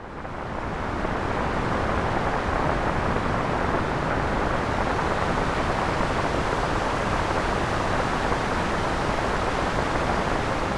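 Synthesized rain from a VCV Rack modular patch: filtered white and pink noise with decimator grit, reverb and delay, giving a steady rain-like hiss. It fades in over about the first second.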